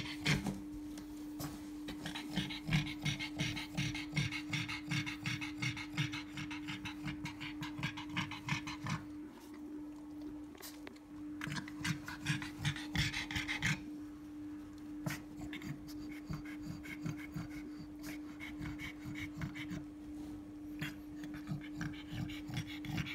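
A black pug in labour panting rapidly and rhythmically, with a couple of brief pauses, as she strains to deliver a puppy. A steady low hum runs underneath.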